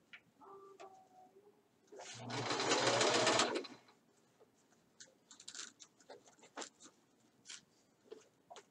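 Home sewing machine running in one short burst of about a second and a half, its motor speeding up as it stitches. It is backstitching across the thick junction where four seams of the pants meet. Light clicks and taps of fabric and machine handling follow.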